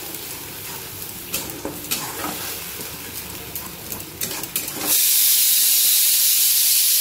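A steel spatula scraping and stirring mustard paste (besara) as it fries with a light sizzle in an iron kadai. About five seconds in, a pressure cooker's whistle starts venting steam in a loud, steady hiss that drowns out the stirring.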